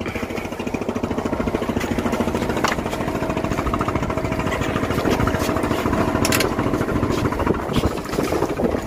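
Boat engine running steadily with a rapid, even throb.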